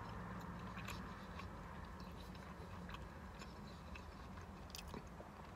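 Faint chewing with a few soft mouth clicks, over a steady low hum inside a car.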